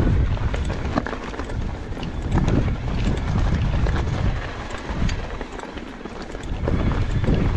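Mondraker Crafty electric mountain bike riding over a rocky trail: tyres crunching over stones while the bike rattles with many sharp knocks and clicks, over a steady rumble of wind on the microphone. It eases briefly about six seconds in.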